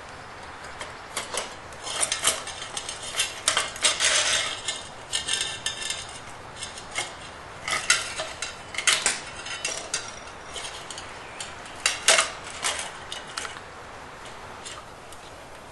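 Irregular metallic clicks, clinks and rattles of a gas water heater's main burner and its tubing being handled and fitted back together. They start about a second in and die away near the end.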